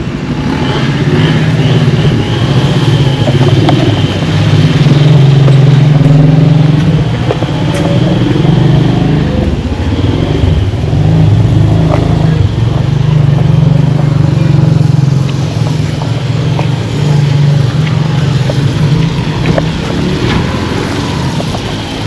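A motor vehicle's engine running loudly, swelling and easing off several times.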